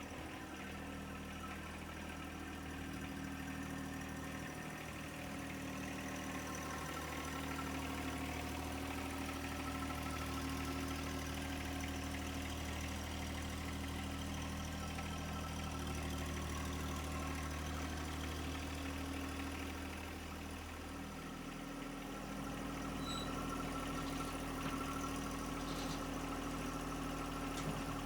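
John Deere 1025R compact tractor's three-cylinder diesel engine running steadily at idle. Its pitch and level dip briefly about three-quarters of the way through, then pick up again.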